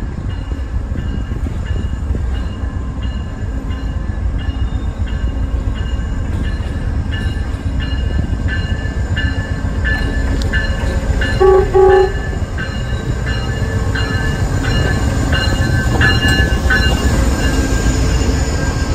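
Train running by with a steady rumble and a run of regular clicks, a faint thin squeal riding over it. Two short horn blasts come about eleven and a half seconds in.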